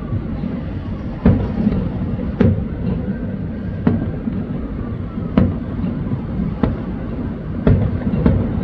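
Aerial fireworks shells bursting: seven sharp bangs, roughly one a second, over a steady low rumble.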